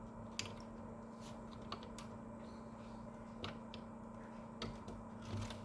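Scattered light clicks and taps from hands working parts of a laser printer's fuser assembly back into place, over a steady low hum.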